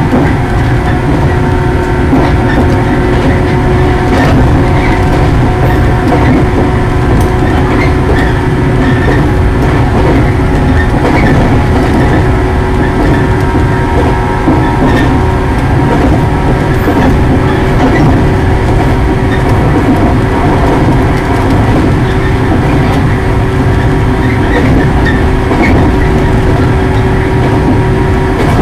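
Shinano Railway 115 series electric train running at steady speed, heard from the driver's cab: a steady mechanical whine over the rumble of the wheels on the rails.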